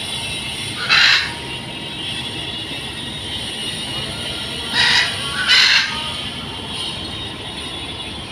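Kobelco SK200 excavator running steadily under digging work, its diesel engine and hydraulics making a constant noise. Three short, harsh screeches cut through it: one about a second in, then two close together around five seconds in.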